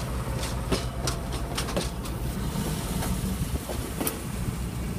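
HO-scale model passenger cars rolling past on a layout, their metal wheels clicking irregularly over rail joints above a steady low hum.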